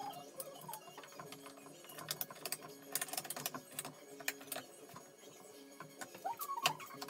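Quiet background music with repeated held notes, over scattered sharp clicks and knocks of a wooden frame and one-handed bar clamps being handled. The loudest clicks come near the end, as a clamp is picked up.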